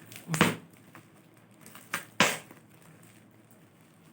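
A knife slicing through parcel packing in a few quick, sharp strokes, the loudest just after two seconds in.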